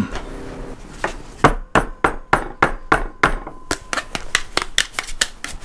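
A hard black spatula being clacked repeatedly against another utensil. A steady run of sharp taps comes about three a second, then quickens to about five a second in the second half.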